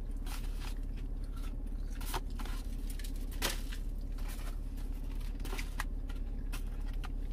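Close-up chewing of a breaded chicken nugget: scattered wet clicks, smacks and crackles of the mouth, over a steady low hum.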